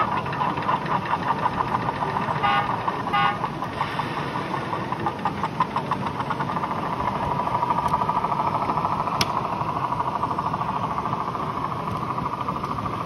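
Garden-railway model locomotive running, with a quick, even beat of about three pulses a second that smooths into a steadier running sound after about six seconds. There is a single sharp click about nine seconds in.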